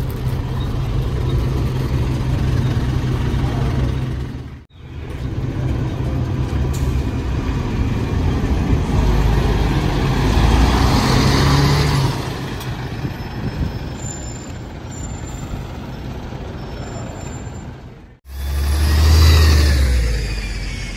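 Double-decker bus diesel engine running, then pulling away: the sound swells to a peak in the middle and fades as the bus passes. It breaks off abruptly twice.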